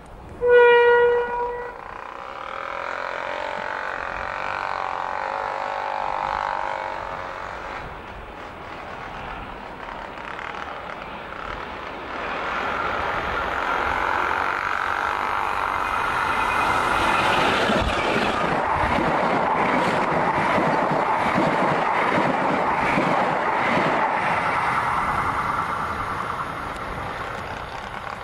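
Diesel locomotive sounds one short horn blast, then its engine grows steadily louder as it approaches and passes close by, with the clatter of its wheels on the track.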